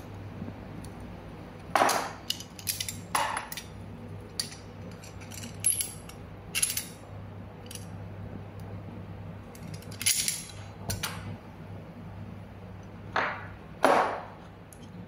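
Irregular sharp metallic clicks and clinks as a shielded metal Cat6A keystone module is snapped shut on a cable and pressed with locking pliers, the loudest about two seconds in, around ten seconds and twice near the end.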